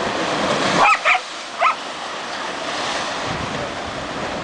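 Dog giving three short, high barks about a second in, two close together and one just after, over the steady rush of sea waves breaking.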